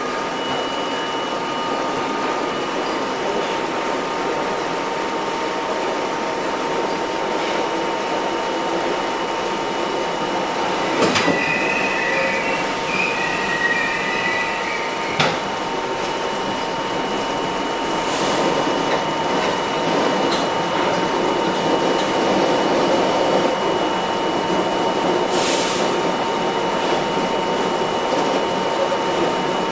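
R32 subway car running through a tunnel, a steady rumble with two thin steady tones under it. Two sharp knocks come about 11 and 15 seconds in, with a short wheel squeal between them, and two brief hisses near the end.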